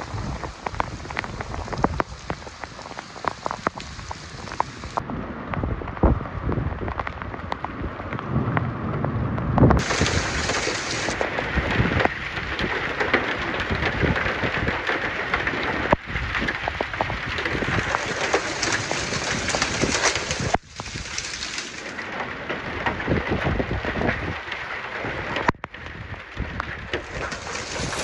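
Heavy rain and gusting downburst winds of a severe thunderstorm, with small hail striking cars and pavement in many sharp clicks. The sound shifts abruptly in level and tone several times.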